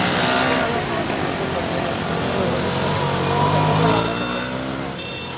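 Road traffic passing close by on a bridge: car and motorcycle engines rising and falling in pitch over a steady wash of traffic noise. The level drops a little near the end.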